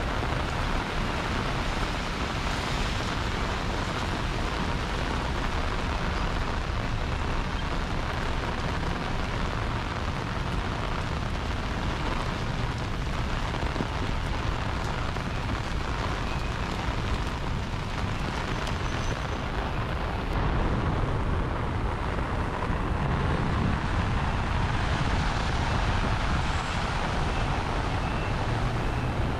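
Steady rain on a city street with traffic passing, growing slightly louder about twenty seconds in.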